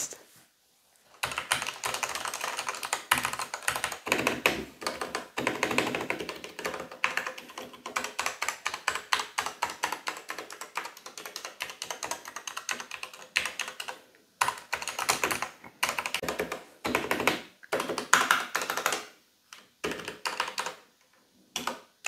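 Fast typing on a Royal Kludge RK89 mechanical keyboard with Royal Kludge's own red linear switches: a dense run of keystroke clacks, with a few short pauses in the last third.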